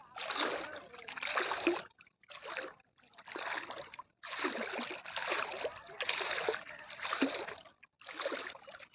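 Floodwater splashing in a series of separate strokes, roughly one every second, with short quiet gaps between them.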